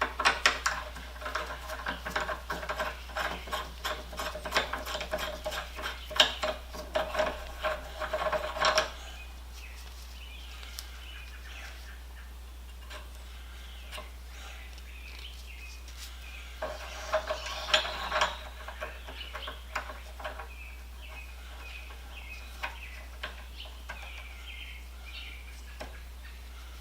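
Steel C-clamp parts clinking and rattling as they are handled and fitted together, in quick metallic clicks with a short ring. A long spell of clicking at the start and a shorter one a little past the middle.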